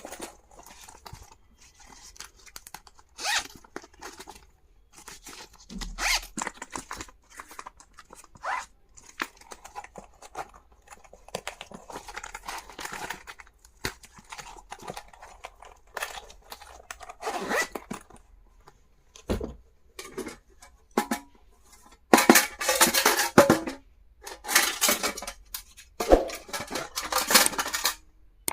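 Packaging being torn open and crinkled by hand in irregular rustling bursts, louder over the last several seconds.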